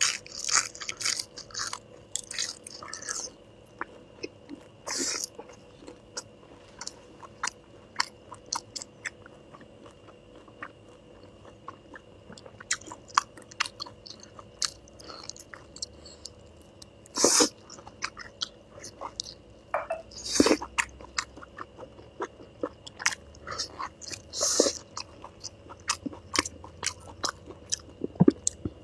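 A person chewing and biting pan-fried pork large intestine close to a lapel microphone: a steady run of short wet clicks and smacks, with a handful of louder bites scattered through.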